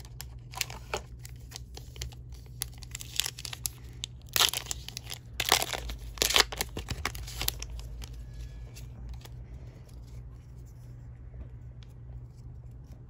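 Foil Pokémon TCG booster pack wrapper torn open and crinkled by hand, a run of crackling rips that is loudest from about four to seven and a half seconds in, then dies down to quiet handling.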